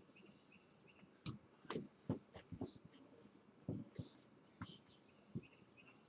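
Faint, irregular knocks and clicks, about ten of them scattered over a few seconds, over a quiet background hiss.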